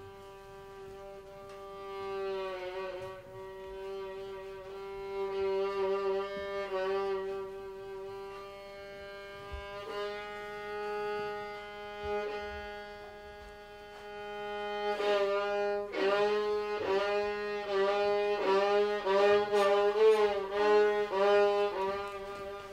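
A fiddle holds one long bowed note that swells and fades, then, about two-thirds of the way in, switches to quick repeated bow strokes on the same note, louder toward the end.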